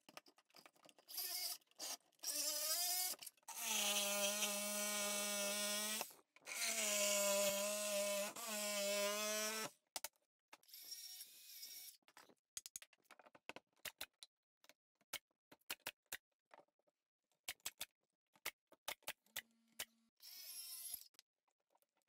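A power saw cutting through a wooden wall stud in two runs of about three seconds each, holding a steady pitch, after a few short starts. Scattered light knocks and clicks of wood being handled follow.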